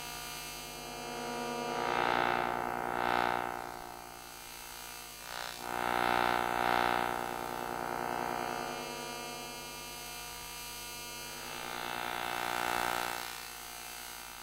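Electrical hum and buzz with many steady overtones, swelling louder and fading in waves: around two to three seconds in, again at about six to seven seconds, and near the end.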